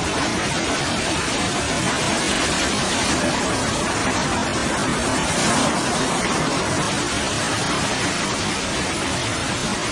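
Typhoon storm noise: wind, rain and surging seawater make a steady rushing sound that swells slightly about halfway through.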